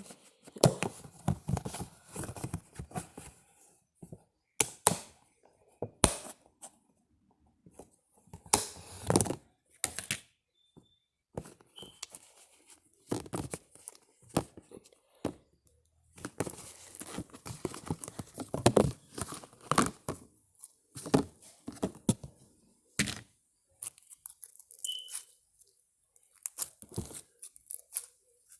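Slime being squeezed, stretched and poked by hand: irregular runs of sticky crackling clicks and pops with short pauses between handfuls.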